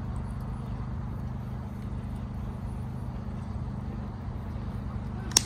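Wood fire burning in a metal campfire ring, with one sharp crackling pop near the end, over a steady low hum.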